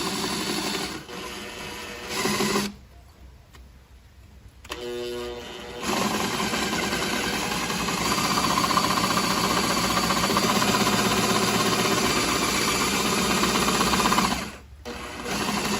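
Electric drill boring through sheet steel, running in bursts: a short run, a stop of about two seconds, a brief spin, then a long steady run of about eight seconds with a short break near the end.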